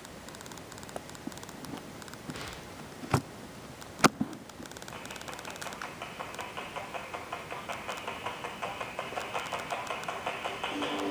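Opening of a film soundtrack played from a VHS tape: faint hiss with two sharp clicks about 3 and 4 seconds in, then a rhythmic ticking of about two to three beats a second that builds steadily louder into the opening music.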